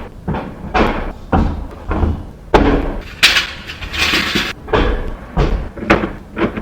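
Repeated loud bangs and slams, roughly one or two a second, with a longer scraping rush about three seconds in.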